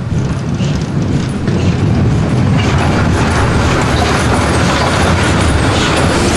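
A train running past, its rumble swelling about a second in and then holding steady.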